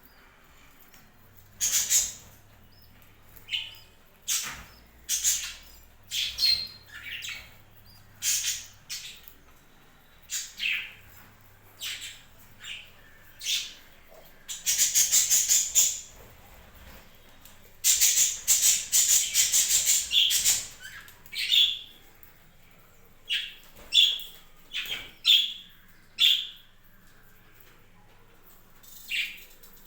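Budgerigars chirping and squawking in short, sharp calls, with two longer bouts of rapid chattering about halfway through.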